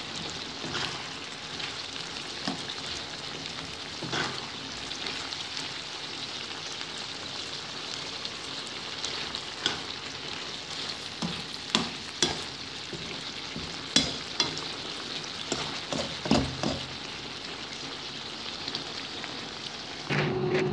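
Lamb liver adobo sizzling in its sauce in a pan as a spatula stirs it: a steady sizzling hiss with scattered sharp knocks and scrapes of the spatula against the pan, thickest in the second half.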